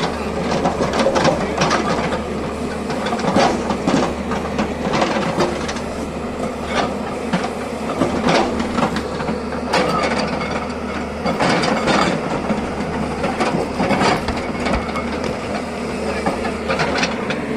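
Excavator at work: a diesel engine running steadily, with frequent irregular metallic clanks and knocks from the digging and loading.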